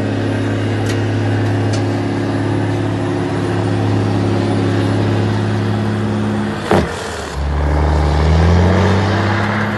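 Volvo FH 540's straight-six diesel engine pulling a heavy two-trailer tipper combination away at steady revs. About seven seconds in there is a short sharp noise, then the engine note drops and climbs steadily as the revs rise again.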